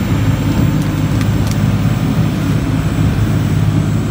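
Motorboat under way: steady low engine drone with rushing water along the hull.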